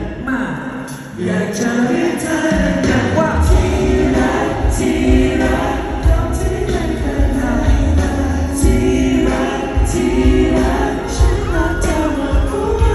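Amplified live pop music: a singer over band backing with a heavy bass and steady drum beat, played through a venue's sound system during a concert sound check. The music dips briefly about a second in.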